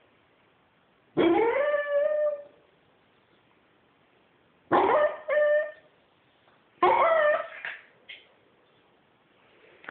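Pembroke Welsh Corgi howling and whining in three bouts. The first, about a second in, rises in pitch and then holds. The next are two short calls, then a longer call with a short yip after it.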